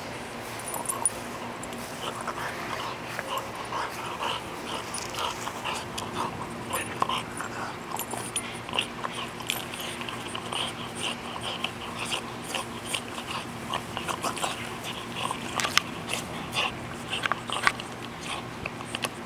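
French bulldog chewing and gnawing a wooden stick: irregular crunches and clicks, with a few sharper cracks near the end.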